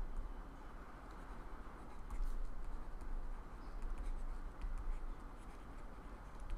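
Soft scratching of a pen tip as a word is handwritten, over a steady low hum of room noise.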